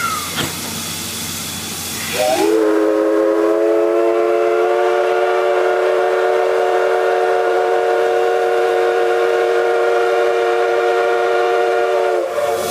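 C58-class steam locomotive blowing its steam whistle as a departure signal. After about two seconds of hissing, one long blast sounds several notes together; it slides up slightly at the start, holds steady for about ten seconds, then cuts off.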